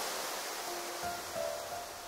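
Rushing mountain-stream water fading down as soft piano music comes in, its first notes about two-thirds of a second in.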